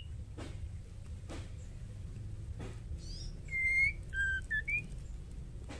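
White-rumped shama giving a short burst of clear whistled notes about three and a half seconds in, the first note the loudest, then a few quick falling and rising whistles. Underneath is a steady low hum with faint clicks about once a second.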